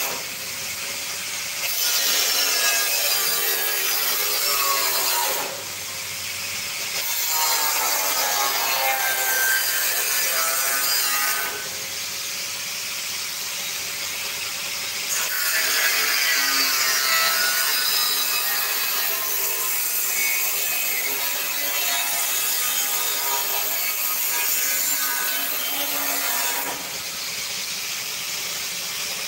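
Angle grinder cutting a thin steel drum. Its whine sags and recovers as the disc bites into the metal, and it eases off briefly a few times.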